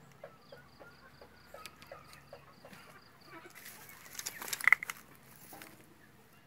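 Farm animal calls: a steady run of short, low calls about three a second, then a louder, shrill call about four and a half seconds in.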